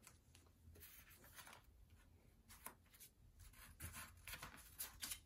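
Faint paper rustling and light scattered taps as construction-paper circles are handled and pressed onto a paper sheet, a little busier in the second half.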